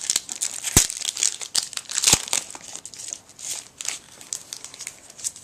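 Baseball card pack wrapper crinkling as it is torn open by hand, with two sharp clicks about one and two seconds in.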